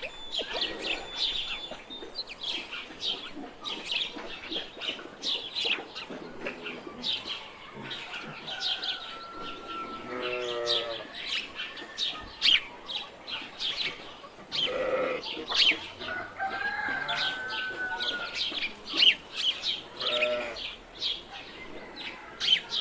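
Rural ambience of many small birds chirping busily, with a few longer farm-animal calls rising out of it, about three in all.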